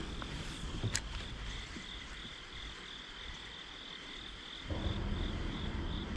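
Insects chirping in a steady chorus, a high note pulsing about three times a second. There is a single click about a second in, and a low rushing noise starts near the end.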